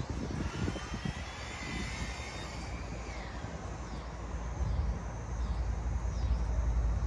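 Low distant rumble that grows louder from about halfway through, with wind buffeting the microphone. Short high chirps repeat about once a second near the end.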